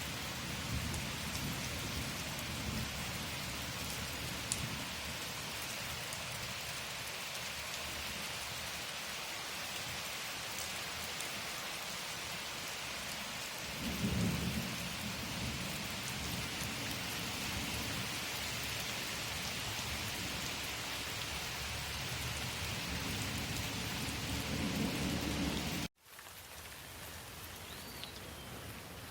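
Steady rain pouring with low rolling thunder, the rumble swelling about halfway through and again just before the sound cuts off suddenly near the end. A quieter, lighter outdoor ambience follows.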